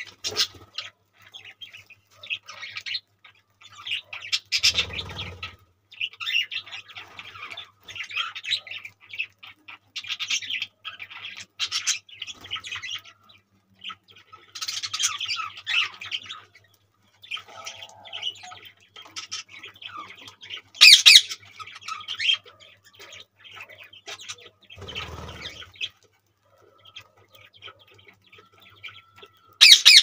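Budgerigars chattering and chirping in irregular bursts, with one sharp, loud squawk about two-thirds of the way through. Two dull thuds, about five seconds in and again near the end.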